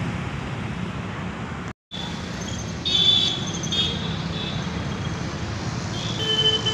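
Street traffic noise: a steady rumble and hiss of passing road vehicles. Short high-pitched tones come through about three seconds in and again near the end. The sound cuts out for a moment near two seconds in.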